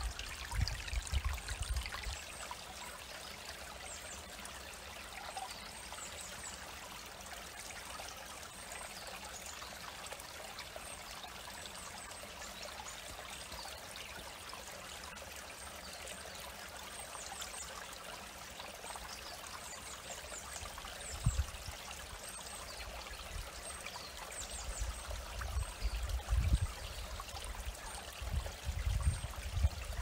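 Clear mountain stream trickling steadily over a pebbly bed, an even babble of water. A few low rumbling bumps come through at the very start, about 21 seconds in, and again over the last few seconds.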